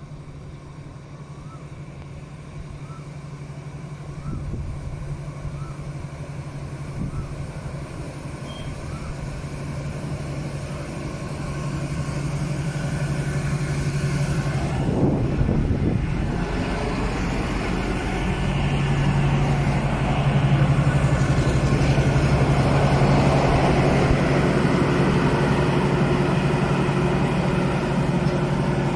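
Diesel locomotive running light with no train, its engine drone steadily growing louder as it approaches. About halfway through it passes close beneath with a brief rush of noise, and it carries on loud and steady nearby.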